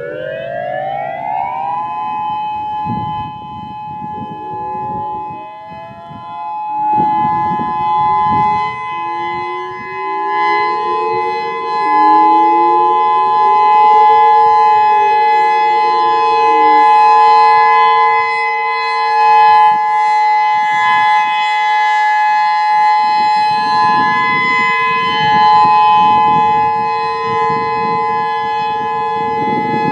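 Federal Signal EOWS 612 electronic tornado siren sounding its steady alert tone. It sweeps up in pitch over the first two seconds, then holds a steady chord of tones. Fainter distant warning sirens rise and fall in pitch behind it a few seconds in.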